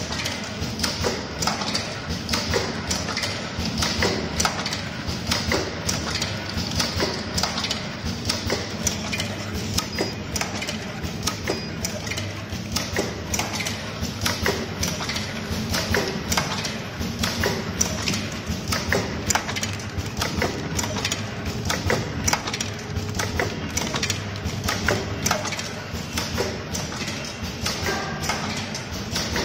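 BAP 180 automatic tea bag packing machine running, making string-tagged inner bags and outer wrappers: a fast, continuous clatter of clicks and knocks from its mechanisms over a steady low hum.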